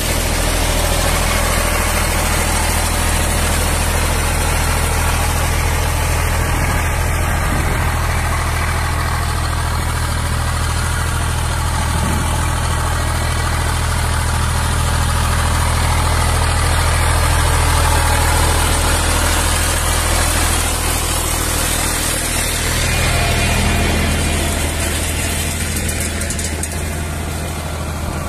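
Zetor 5011 tractor's three-cylinder diesel engine running steadily under load as it pulls a two-furrow mouldboard plough through grassland.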